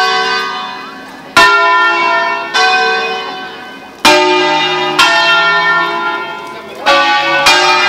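The Collegiata's six-bell ring in A, cast by Bizzozero between 1823 and 1875, playing a preset 'concerto solenne': single bells struck one after another at different pitches in an uneven rhythm. Each stroke rings on and overlaps the next, about six strokes in all.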